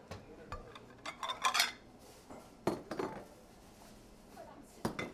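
Small toy dishes clinking and tapping as they are handled: a quick cluster of light clinks about a second in, then a few separate sharper knocks.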